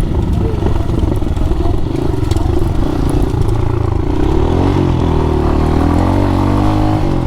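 Dirt bike engine running as it is ridden, steady at first, then rising and falling in pitch from about four seconds in as the throttle opens and closes.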